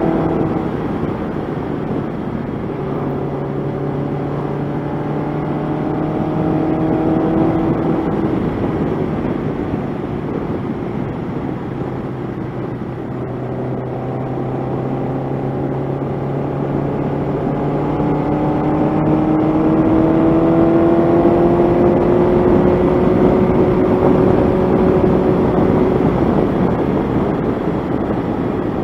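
1985 Honda CB700SC Nighthawk's inline-four engine pulling along at road speed, its pitch slowly rising, easing off about ten seconds in, then rising again for a long stretch. A steady rushing noise runs under it.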